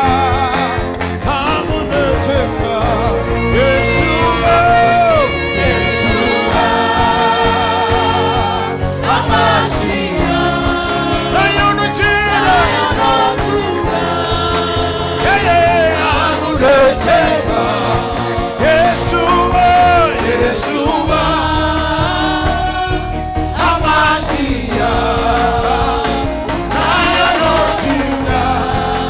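Gospel worship song: voices singing with vibrato over a band with a steady bass.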